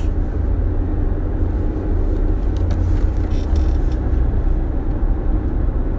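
Steady low rumble with an even background noise, like vehicle or traffic noise, and no clear separate events.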